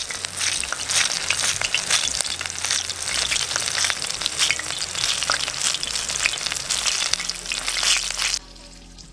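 Hot oil sizzling and crackling with many small pops in a cast iron skillet, as ginger, a hot pepper and whole onions fry in it to flavour the oil. The sizzle stops suddenly near the end.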